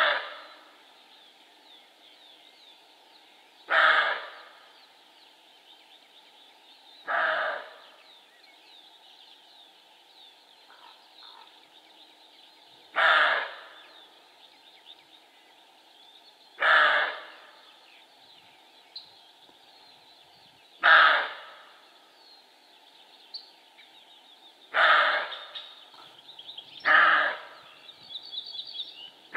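Male roe deer barking: short, loud barks repeated one every few seconds, about eight in all.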